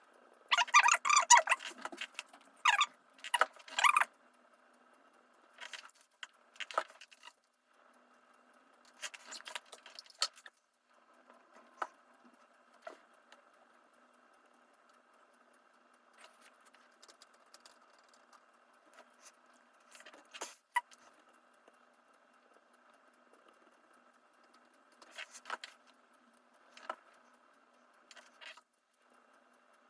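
Rubbing and scraping as laptop parts are wiped clean during a CPU swap, most likely old thermal paste being cleaned off. It is loudest and most continuous in the first four seconds, then comes back as short scattered scrapes.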